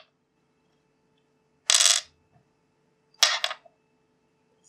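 Small metal parts of an old Soviet toggle switch (the threaded switch body, its hex nut and a turned steel lever) clinking as they are put down on a tabletop, in two short clatters about a second and a half apart, the second a quick double clink.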